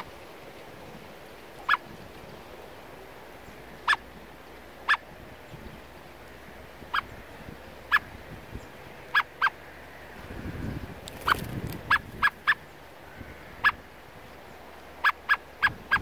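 Male common blackbird giving short, sharp chuck calls, about sixteen in all, some single and some in quick runs of two to four. A low gust of wind on the microphone rumbles briefly about two-thirds of the way through.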